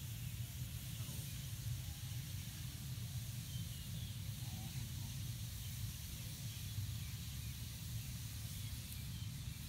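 Steady hiss of an open wood fire with bamboo tubes burning in it, over a constant low rumble.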